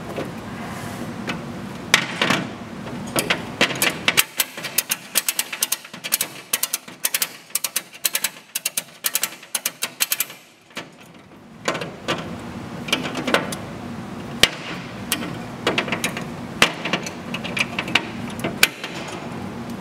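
Steel ratchet buckle of an EZ Release ratchet tie-down strap worked by hand: quick runs of sharp metallic clicks as the pawl slips over the gear teeth, and clanks of the handle. There is a brief lull a little past halfway.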